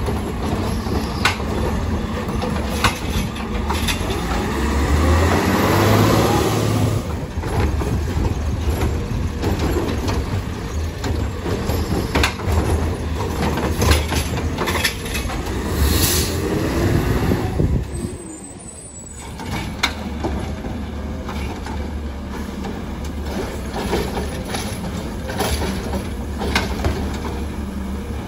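Natural-gas Heil Rapid Rail automated side-loader garbage truck on a CCC chassis working at the curb. The engine runs steadily while the hydraulics rise and fall in pitch twice as the arm lifts and empties carts, with scattered knocks of carts and arm.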